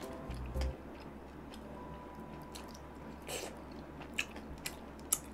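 Close-miked chewing of a chewy piece of glutinous-rice sweet and sour pork: soft wet mouth clicks and smacks scattered through, the clearest about three seconds in.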